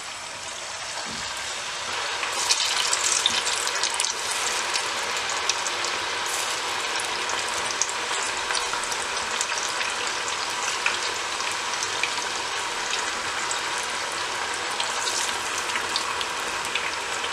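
Marinated chicken pieces deep-frying in hot oil: a steady sizzle with fine crackling, which swells about two seconds in and is busiest for the next couple of seconds before settling.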